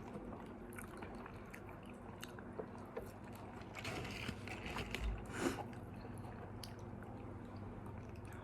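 Faint chewing and biting of fast food close to the microphone, with small clicks and a brief louder patch of rustling about four to five seconds in.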